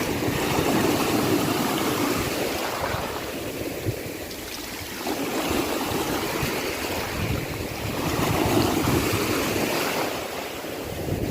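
Sea waves breaking and washing in, the surf noise swelling and ebbing twice, with a low rumble of wind on the microphone underneath.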